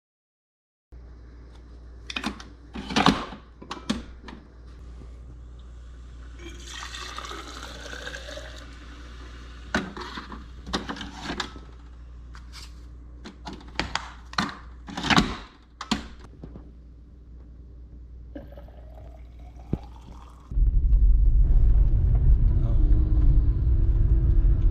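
A scatter of knocks and clicks over a low hum, with a stretch of hissing noise. About 20 seconds in, a concrete mixer truck's heavy diesel engine rumble comes in much louder.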